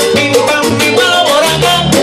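Live Latin band music with a güiro scraped in a fast, even rhythm over percussion and low sustained bass notes.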